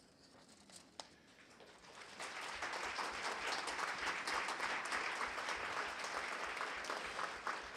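An audience applauding: many hands clapping together, starting about two seconds in and holding steady.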